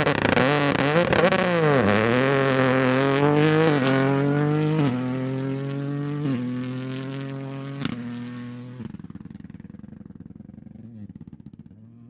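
Toyota GR Yaris rally car accelerating hard on gravel. The engine rises in pitch and drops back at each of two upshifts, with a single sharp crack near 8 s, then fades as the car pulls away.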